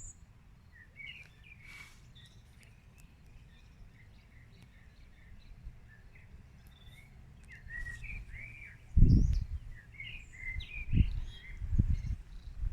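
Several wild songbirds singing, with overlapping short chirps and warbling phrases. In the second half, a few loud low rumbles come and go, louder than the birdsong.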